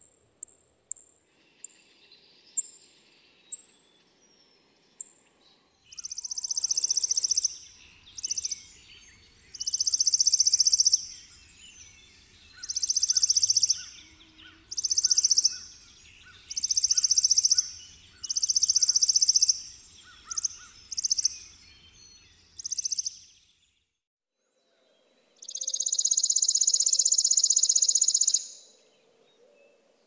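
Chipping sparrow calling and singing: a few sharp, high chips that come more slowly, then about ten dry, rapid trills, each about a second long, and after a brief gap one longer trill of about three seconds.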